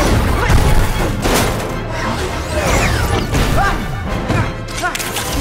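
Action film soundtrack: score music mixed with crashing impacts and many short sweeping whoosh and whine effects.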